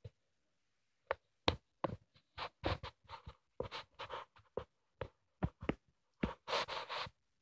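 Coloring strokes scratching across a coloring-book page: a rapid, irregular run of short scratches, several a second, that stops near the end.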